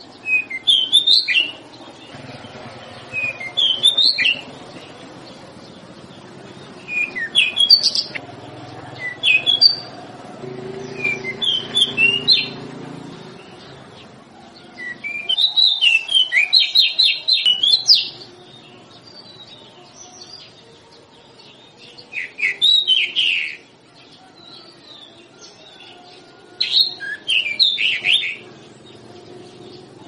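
A songbird singing short phrases of quick, high, chirping notes, one every few seconds, the longest a rapid run of repeated notes lasting about three seconds. A faint low background noise runs beneath the song.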